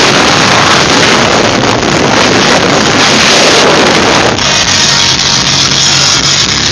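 Loud rushing wind noise on the microphone inside a moving car. It drops away about four seconds in, leaving the car's steady engine and road noise.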